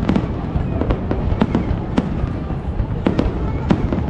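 Aerial fireworks shells bursting in quick succession: a dense, irregular series of sharp bangs, several a second, over a continuous low rumble of more distant explosions.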